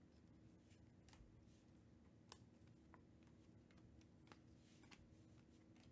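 Near silence with about six faint, short clicks, roughly one a second, as 2021 Panini Prizm baseball cards are slid one at a time off a stack from one hand to the other.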